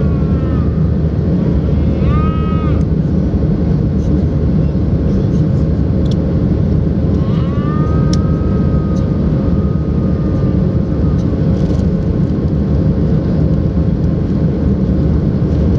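Steady cabin noise inside a Boeing 737-700 climbing out after takeoff: its CFM56-7B engines and the rush of air over the fuselage, heard from a seat over the wing, a deep even rumble with a steady hum in it.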